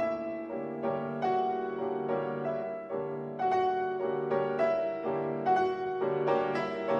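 Background piano music: a slow melody of single struck notes over held chords.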